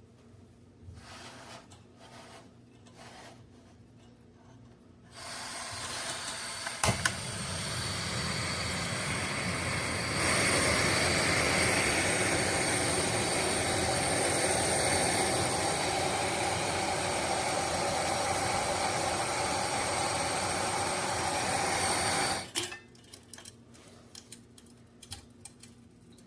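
Portable propane heater hissing steadily after faint handling knocks, with a single sharp click about 7 s in. The hiss grows louder about 10 s in and cuts off suddenly a few seconds before the end.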